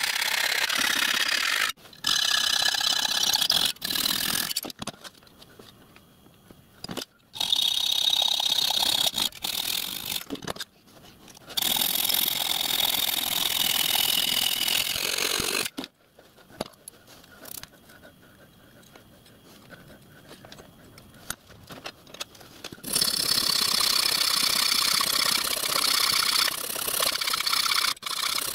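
Hand hacksaw cutting aluminium plate clamped in a bench vice, sped up so the strokes run together into a fast, dense rasping. It comes in several stretches that start and stop abruptly, with quieter pauses between cuts.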